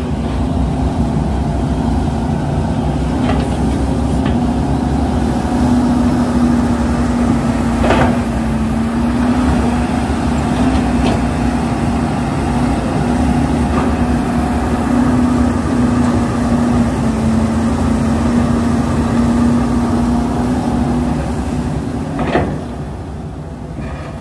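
Heavy diesel engines of excavators at work, a steady drone with a humming tone that wavers slightly, broken by a few short sharp knocks, the loudest about 22 seconds in.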